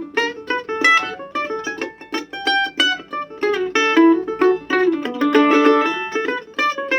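2009 Gibson F-10 reissue F-style mandolin playing a quick picked melody of single notes, with a fast tremolo stretch about five seconds in.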